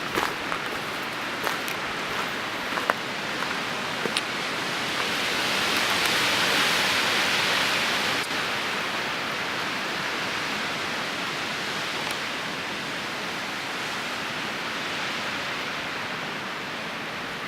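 Steady rush of running or falling water, swelling louder for a few seconds about a third of the way in, with a few faint clicks near the start.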